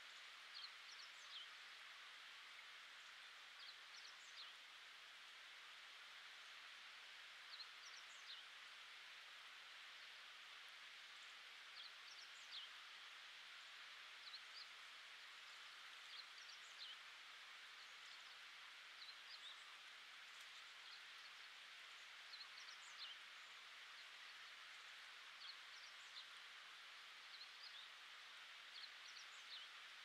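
Faint mountain ambience: a steady hiss with many short, high chirps of distant small birds scattered throughout.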